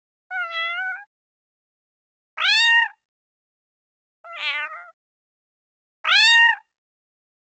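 A domestic cat meowing four times, about every two seconds, each meow under a second long; the second and fourth meows are the loudest.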